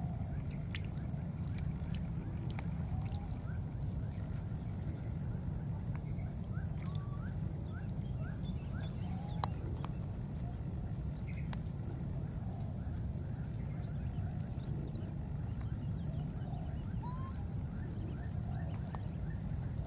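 Outdoor ambience: a steady low rumble and a steady high hiss, with faint short rising chirps and small squeaks scattered throughout, some coming in quick runs of several.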